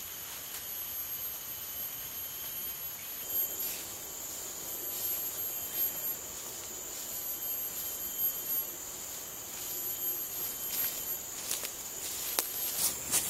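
Steady high-pitched chorus of forest insects. Near the end come a few sharp crunches of footsteps through undergrowth.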